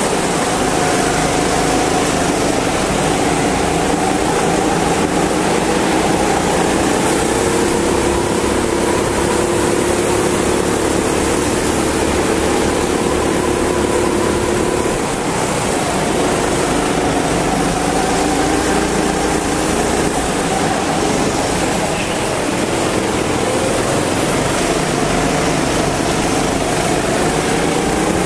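Go-kart engine running hard, heard from on board the kart, its pitch rising and falling with the throttle through the laps and dropping briefly about 15 and 22 seconds in, over a steady hiss.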